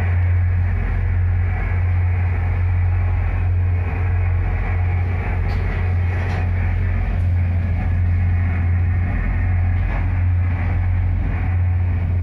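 Tugboat's diesel engines droning steadily with a strong low hum, heard inside the wheelhouse; the sound cuts off suddenly at the end.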